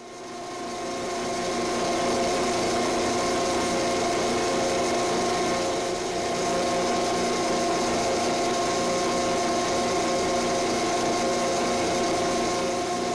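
Small metal lathe running: the motor and drive spin up over the first couple of seconds, then run at a steady speed with a constant whine of several tones.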